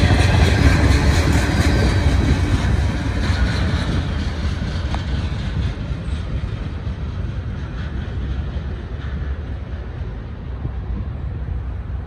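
Long ethanol freight train rolling past: a steady low rumble of wheels on rail that slowly fades.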